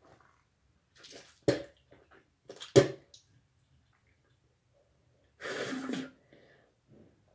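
Someone bent over a bathroom sink making wet sounds: two sharp, loud splashes about a second apart, then a short rush of noise lasting under a second.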